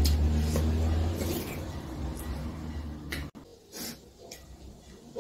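Metal spoons clinking and scraping against ceramic soup bowls as two people eat, over a low rumble that cuts off suddenly a little past halfway.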